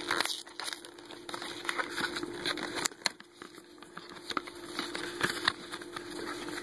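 A small paperboard soap box being handled and opened: scattered rustles, taps and the tearing of its cardboard flap, over a faint steady hum.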